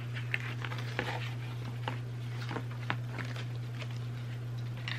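Light clicks and taps of flat gnome garden stakes being handled and turned over, scattered irregularly over a steady low hum.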